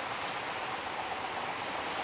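Steady hiss of steam from a narrow-gauge steam locomotive approaching in the distance.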